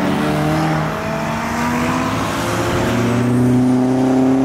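A modified car's engine accelerating past, its pitch climbing steadily for about three seconds and loudest near the end.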